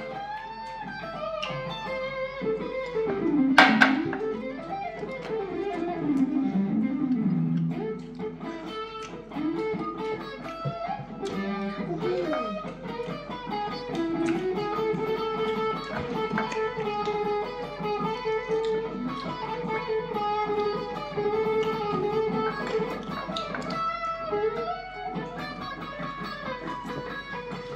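Background music led by a guitar playing a melody with sliding, bending notes, with a sharp hit about four seconds in.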